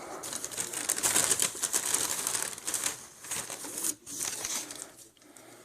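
Crinkling plastic of a packet of card sleeves being handled, with rapid rustling and clicking that eases off near the end.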